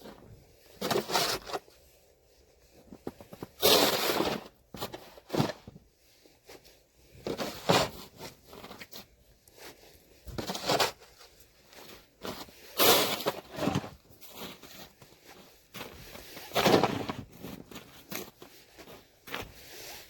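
Snow shovel scraping and pushing through snow, one stroke about every three seconds, with smaller crunches between the strokes.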